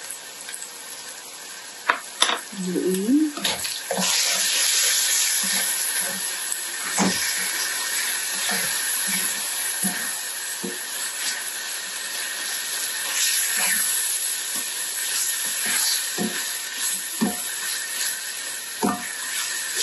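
Ground beef and tomato sauce sizzling in a hot pan while a spatula stirs it, with scattered knocks and scrapes of the spatula against the pan. The sizzle gets louder about four seconds in.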